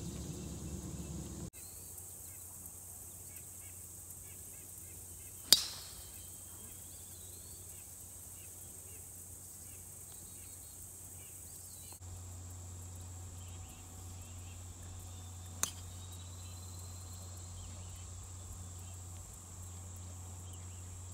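A golf club striking a ball on a tee shot: one sharp, loud crack about five seconds in, then a fainter crack of another strike about ten seconds later. A steady high insect drone and bird chirps sound throughout.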